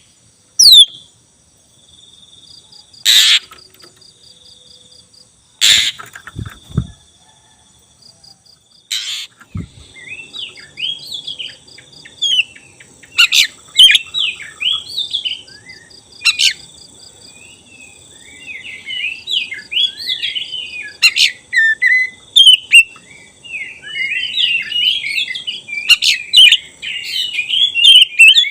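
Black-breasted oriental magpie-robin (kacer dada hitam) singing a fast, varied song of chirps, whistles and warbles that starts about a third of the way in and grows denser toward the end. Before it come three loud sharp snaps and a repeating insect-like ticking trill.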